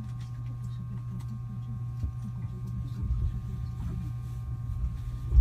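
A steady low hum with faint, muffled voices beneath it, and a short low thump near the end.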